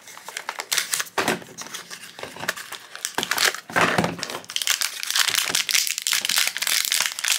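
A small cardboard blind box opened, then a black foil blind bag crinkling as it is handled in the hands. Sparse crackles at first, growing to dense, near-continuous crinkling over the second half.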